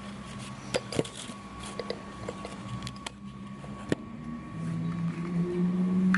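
Sharp plastic clicks and taps as a cordless drill's battery pack is handled and opened, four in all, then a steady low hum that comes in about four and a half seconds in and grows louder.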